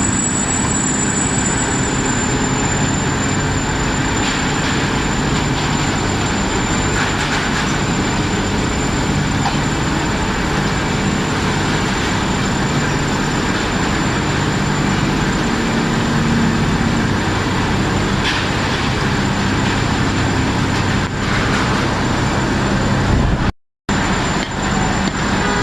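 Steady, loud industrial noise of a steel mill's reheating furnace and machinery, a continuous rumble with a low hum and a thin high whine. The sound cuts out briefly near the end.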